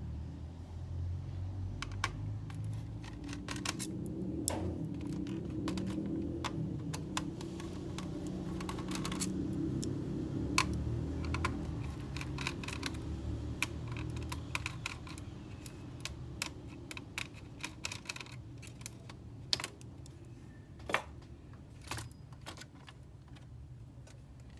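Irregular quick clicks and taps on a laptop, like keys or small plastic parts being pressed and handled, over a steady low rumble.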